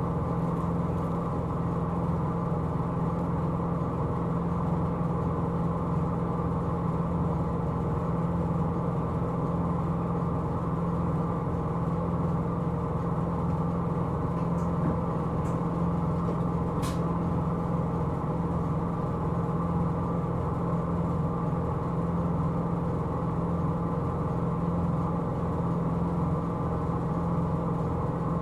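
Hino Rainbow II bus's diesel engine running at a steady, unchanging pitch, with a few faint ticks about halfway through.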